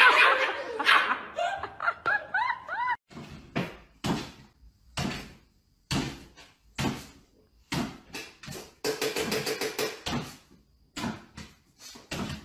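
A person laughing for the first couple of seconds. Then a cat leaps repeatedly, and its landings on a wooden floor make a string of thumps roughly once a second.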